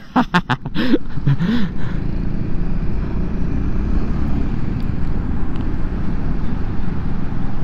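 Steady wind rumble and engine and road noise from a Honda Forza 350 scooter being ridden at speed, heard through the rider's own microphone.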